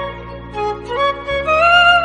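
Background music: a single melody line sliding between notes over a steady low drone.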